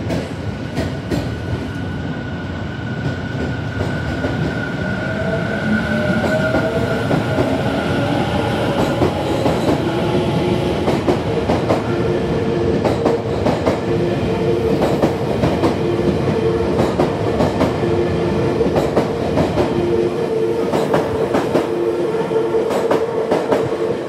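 Tobu 50000 series electric train pulling out and accelerating past on an underground platform: its traction motors whine, rising in pitch as it picks up speed, then settle into a steady hum as the cars go by with repeated clicks of the wheels over rail joints.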